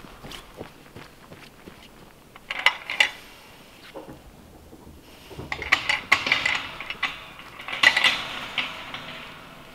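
Metal clinking and rattling in three short bursts, about two and a half, five and a half and eight seconds in.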